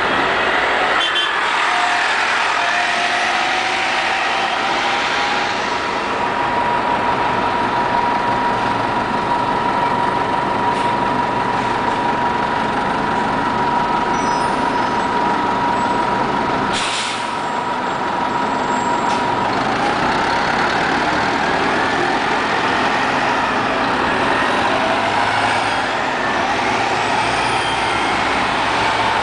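Orion V city transit buses driving past and pulling away, engines running with a whine that holds steady for a while and then glides up and down in pitch. A brief sharp hiss of air cuts in about seventeen seconds in.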